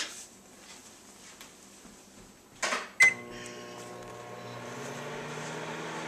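Microwave oven switched on about three seconds in: a sharp click with a short beep, then the steady hum of the oven running.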